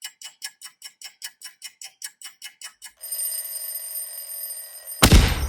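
Clock ticking fast, about five ticks a second. About three seconds in it gives way to a steady alarm-clock ring, and a loud sudden hit cuts in near the end.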